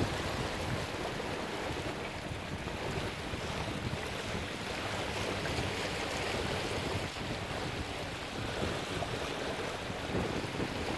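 Steady rush of water along the hull of a sailboat moving under sail, mixed with wind buffeting the microphone.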